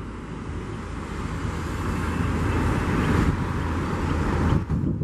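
Jet aircraft noise, a rumbling roar that grows steadily louder and then cuts off abruptly near the end.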